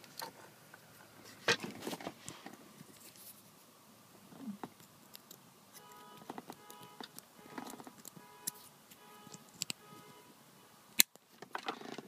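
Scattered small clicks and rubbing from hands handling the shift knob's wiring connector and the phone recording it, with a sharper click near the end. Faint music plays underneath.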